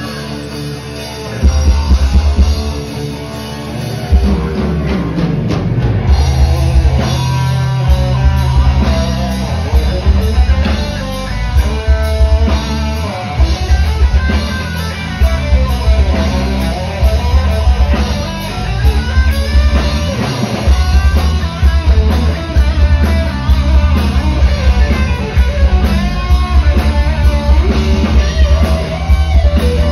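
Live rock band playing loud: electric guitar, bass guitar and drum kit. A loud entry comes about a second and a half in, followed by a pitch slide a few seconds later, and then a steady, driving beat.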